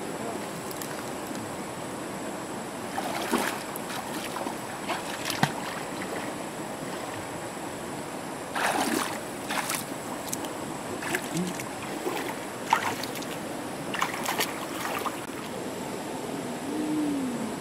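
Steady hiss of a shallow river, with irregular splashes and sloshing of feet wading through knee-deep water among stones.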